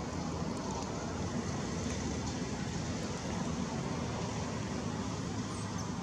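Steady, even background rumble with no distinct calls standing out.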